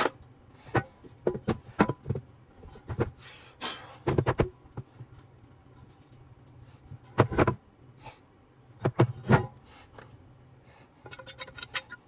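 Metal transfer case parts and hand tools knocking and clinking as they are handled, in irregular single knocks and short clusters, with a quick run of light ticks near the end. A low steady hum runs underneath.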